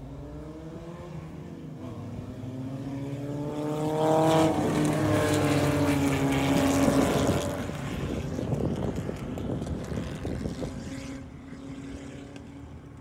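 Several Fórmula 1800 single-seater race cars with 1.8-litre engines approach and pass close by at speed. Their engine notes rise to the loudest point about four seconds in, drop in pitch as the cars go past, then fade as they head off into the turn.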